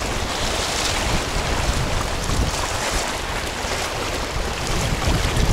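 Rushing mountain river water with wind buffeting the microphone, a steady loud noise with an uneven low rumble.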